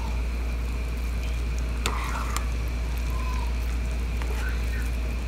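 Chicken biryani sizzling gently in the pot as it is stirred, with two sharp clicks of the spoon against the pot about two seconds in, half a second apart, over a steady low hum.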